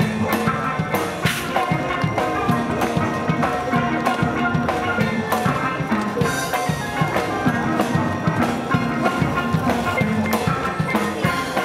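Steel pan band playing, the pans ringing out quick struck notes over a steady drum beat.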